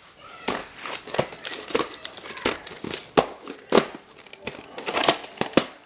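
Plastic crinkling with irregular sharp clicks and crackles as a VHS tape and its case are handled and opened.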